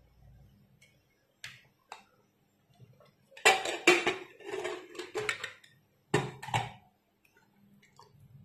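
Metal pressure cooker lid knocking and scraping against the cooker as it is handled: two light clicks, then a run of loud clattering knocks a few seconds in and two more a little later.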